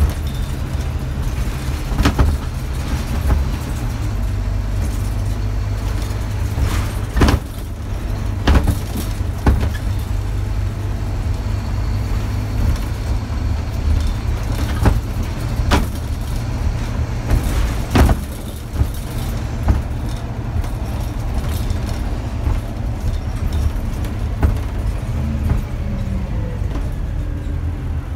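Scania DC9 five-cylinder diesel engine of a Scania OmniDekka double-decker bus pulling steadily under way, a low drone heard from inside the passenger saloon. Several sharp knocks and rattles from the bus body stand out over it, the loudest about 18 seconds in.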